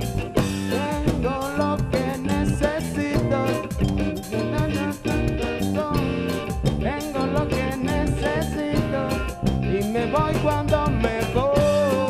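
Live band playing a song with a steady drum beat, guitar and keyboard, and a man singing.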